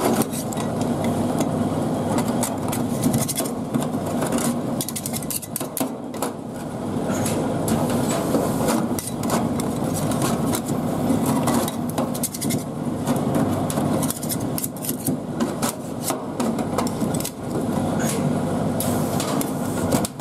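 Metal spatulas chopping and scraping tomatoes on a cold aluminum pan: repeated, irregular clacks and scrapes of steel on metal, over a steady low hum.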